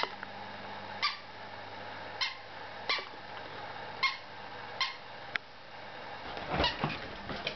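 A small long-haired white dog with a yellow ball in its mouth makes short high-pitched sounds, about one a second, seven or eight in all. A louder rustling comes near the end.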